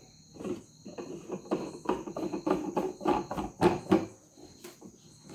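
Handling clicks and knocks from a Morphy Richards espresso machine's parts being fitted and locked into place, a quick irregular series with the loudest knock near the end. Two steady high tones sound throughout.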